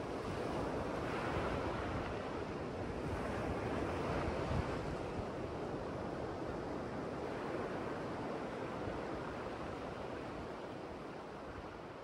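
Ocean surf breaking and washing onto a sandy beach: a steady rushing that swells and eases, tapering off a little near the end.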